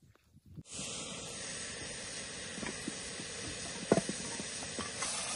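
A steady hiss sets in about a second in. Over it come a few light clicks of chopped potatoes being mixed by hand in a steel bowl, with one sharper knock about four seconds in.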